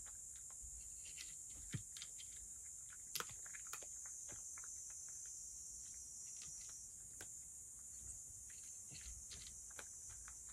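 A cat eating wet food from a wooden dish: faint, irregular small clicks and smacks of chewing and licking, over a steady high hiss.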